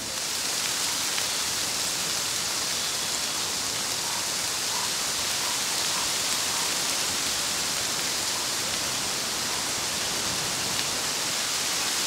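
Bamboo leaves rustling in the wind, a dense, steady hiss much like rain.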